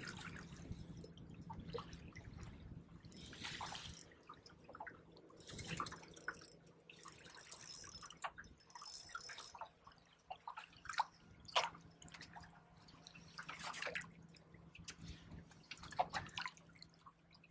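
Small splashes and drips of water at the surface beside a boat as a hooked fish is drawn in, the splashes coming irregularly, a few a second at most. A faint steady low hum runs underneath.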